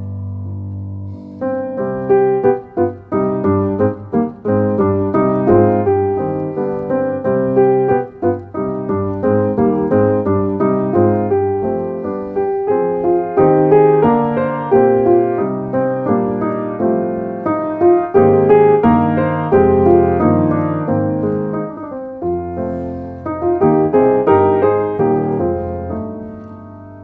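Background piano music, a melody over chords, beginning to fade out near the end.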